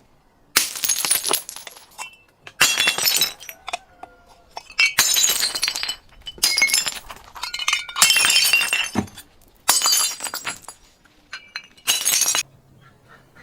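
Glass breaking and crunching in about seven separate bursts a second or two apart, each with a crackle and tinkling of shards.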